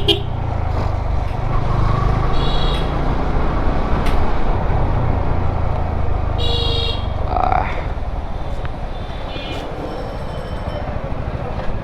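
Steady low rumble of a motorcycle ride in town traffic, with several short horn toots from nearby vehicles; the loudest is about six and a half seconds in.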